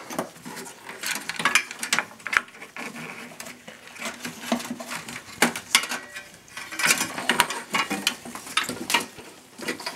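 Power supply cables being unplugged and gathered inside a desktop PC's sheet-metal case: irregular clicks, taps and rustles of plastic connectors and wire bundles, with a few sharper clicks among them.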